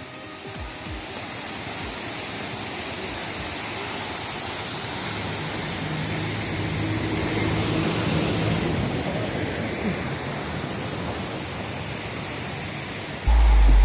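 Fast-flowing river rushing: a steady noise of water that grows louder through the middle. Near the end a sudden loud low rumble cuts in.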